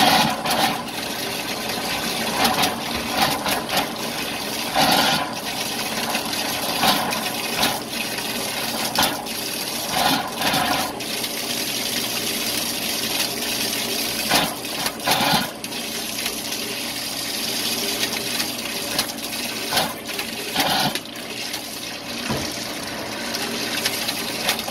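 Water from a sink faucet running steadily into a stainless-steel basin, broken by irregular louder bursts every one to several seconds: sputtering from air in the water lines.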